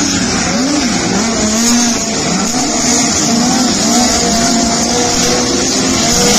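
Several race car engines running together, their pitch rising and falling repeatedly as the cars go around the track.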